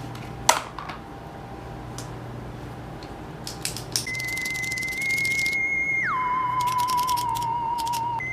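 A few small clicks and taps of handling in the first half, one sharper click near the start. About four seconds in, an edited-in electronic tone begins: a steady whistle-like pitch that drops lower about two seconds later, with a fast ticking running over it.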